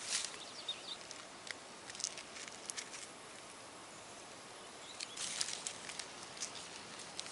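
Long cattail leaves rustling and crackling as they are bent and woven by hand into a basket, in short scattered bursts with a busier cluster about five seconds in.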